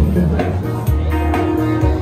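Live street music: a busker's acoustic guitar playing through a loudspeaker, with held notes over a steady bass.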